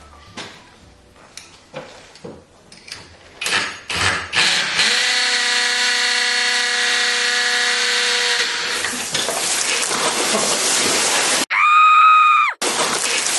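Drill with a masonry bit going into a brick wall: a few light knocks, then the drill runs with a steady whine for about four seconds before giving way to a loud hissing rush. A loud pitched tone sounds for about a second near the end.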